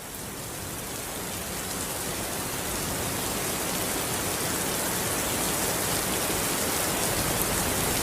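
Steady rain falling, a dense even hiss of drops, fading in and growing louder over the first few seconds before holding steady.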